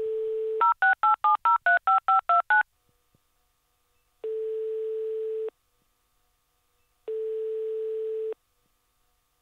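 Telephone call being placed: a dial tone for about half a second, then about ten quick touch-tone (DTMF) keypad beeps dialing a number, then the ringing tone on the line as two long beeps, each about a second and a quarter, a few seconds apart.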